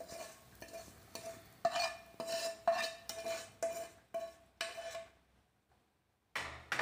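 Steel spoon scraping and tapping fried masala out of a non-stick frying pan into a glass bowl, a dozen or so quick strokes with a short ringing note, stopping about five seconds in. A single knock near the end.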